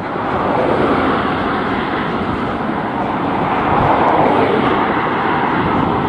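Strong wind blowing on the microphone as a loud, steady rushing noise, mixed with cars passing on the road alongside; the noise swells slightly about four seconds in.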